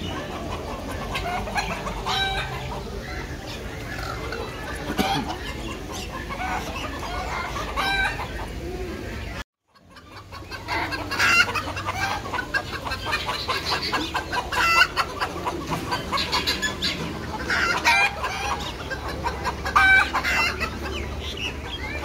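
Chickens clucking in a mixed flock of fowl, with repeated louder calls over a busy background of bird noise. The sound cuts out completely for a moment about halfway through, then comes back louder.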